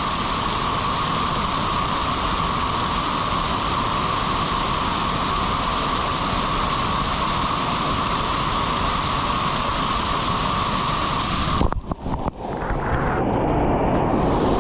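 Waterfall rushing: a loud, steady noise of falling water close by. About twelve seconds in it breaks off abruptly and picks up again as a duller rush.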